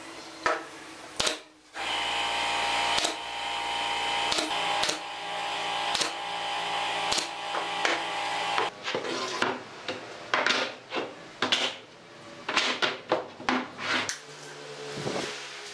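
Long wooden strips handled and set down on a wooden workbench: scattered sharp knocks and clatter, coming thicker and faster in the second half, over a steady hum through the first half.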